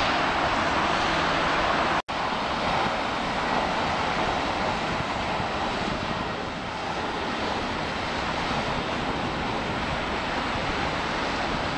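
Boeing 737 jet engines at take-off thrust, heard from a distance as a steady rushing roar. The roar cuts out for an instant about two seconds in and eases off slightly as the jet climbs away.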